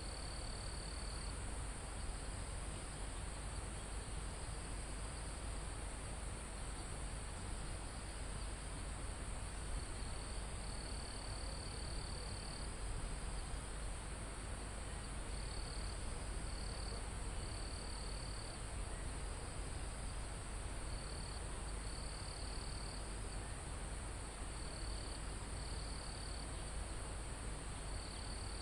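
Crickets and other insects chirring: a continuous high-pitched drone, with a lower trill that starts and stops every second or two, over a steady even hiss.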